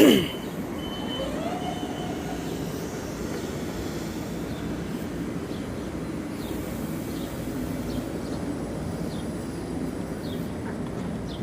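Steady rumble of a vehicle in motion, opening with a brief loud sound that falls in pitch.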